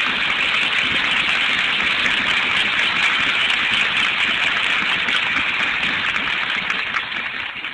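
Audience applauding: a steady, even clapping that eases off slightly near the end.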